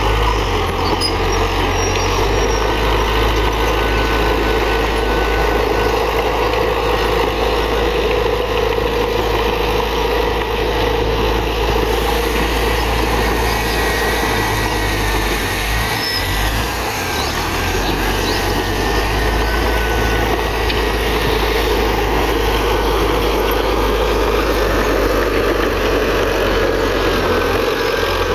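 Heavy diesel earthmoving machinery running steadily, with a faint high whine over the engine noise. The sound eases briefly about halfway through.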